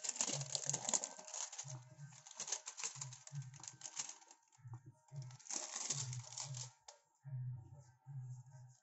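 Clear plastic wrap crinkling and rustling in uneven bursts of small crackles as it is peeled and handled off a corrugated plastic sheet wound with solar-cell tabbing wire. A low hum comes and goes underneath.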